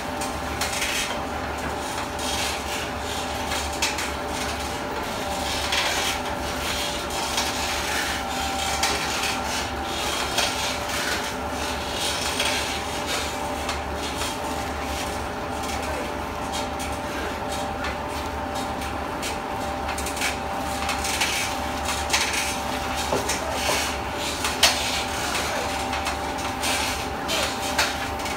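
Raffia plastic-recycling machinery running steadily, a constant hum with a few steady tones, overlaid by irregular clicks, knocks and rubbing noises that come more often in the second half.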